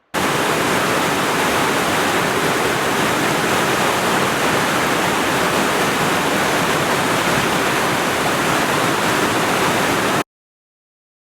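Loud, steady rush of fast-flowing creek water, which cuts off suddenly near the end.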